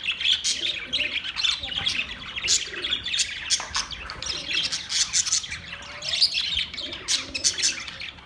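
Budgerigars chirping and chattering continuously, many quick overlapping high-pitched tweets.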